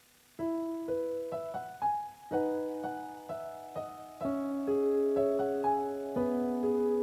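Slow solo piano music: single notes and chords struck one after another over held lower notes, each note ringing and fading, beginning about half a second in.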